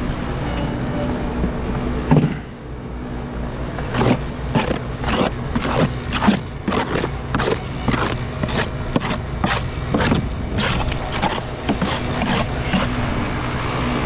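A series of sharp knocks, about two a second and a little uneven, starts about four seconds in and stops near the end. Under them runs a steady low machine hum, with one single loud knock before the series.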